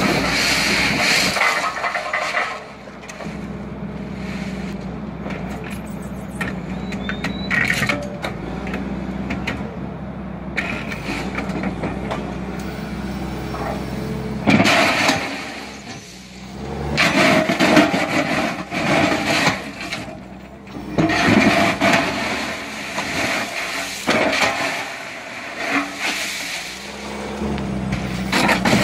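Railway track machine's engine and hydraulics running with a steady low hum while a concrete sleeper is dragged through the ballast under the rails. There are bursts of gravel scraping and crunching near the start and several more in the second half.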